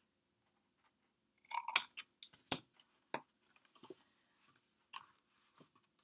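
Scissors snipping through cardstock: a cluster of short, crisp snips about a second and a half in, then a few scattered clicks as the paper is handled.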